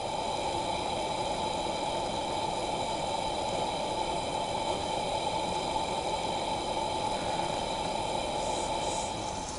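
A steady hiss, strongest in the middle range, with faint steady high-pitched whines above it and no change in level.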